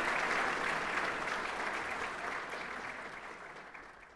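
Audience applauding a talk, the clapping dying away gradually over the last couple of seconds.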